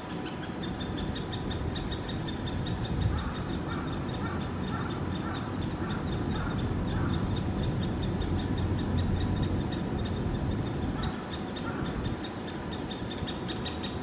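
Great spotted woodpecker nestling calling from its tree-hole nest: a rapid, continuous run of high ticking chirps, fainter in the middle and louder again near the end. A steady low rumble runs underneath.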